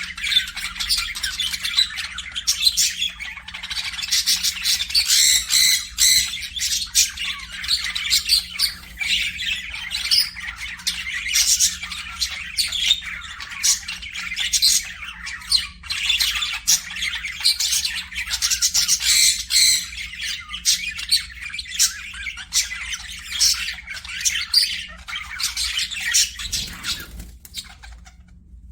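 Parakeets chattering and squawking in a dense, continuous stream of overlapping high, short calls that thin out near the end.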